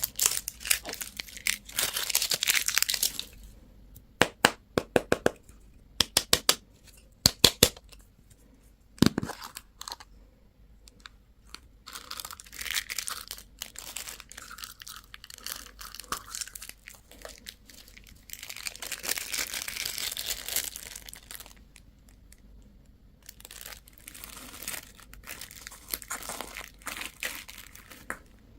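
Plastic candy and toy wrappers crinkling and tearing open, with a run of sharp clicks and snaps partway through.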